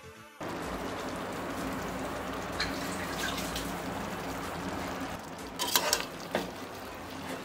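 Fried chicken pieces sizzling in a pan with black pepper masala, a steady hiss that starts suddenly about half a second in. Near the end a stirring utensil knocks against the pan a few times.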